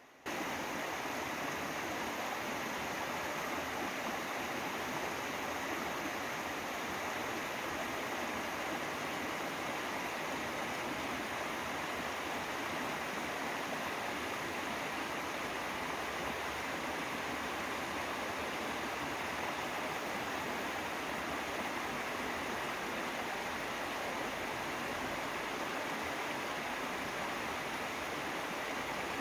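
Mountain valley stream rushing over rocks, a steady, unchanging flow of water that cuts in abruptly just after the start.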